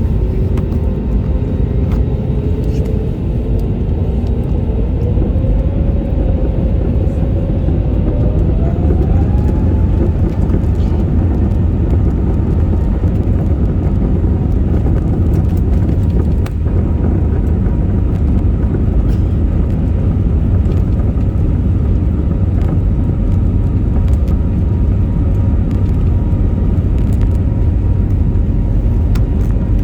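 Airliner jet engines spooling up for takeoff: a whine rises steeply in pitch a few seconds in and then holds, over a loud, steady low rumble of the takeoff run.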